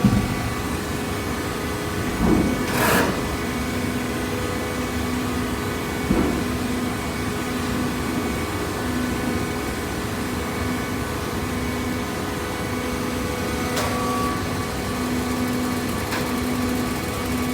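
Hydraulic carton baler running: a steady electric motor and hydraulic pump hum with a pulsing low tone, broken by a few short knocks, about two to three, six and fourteen seconds in.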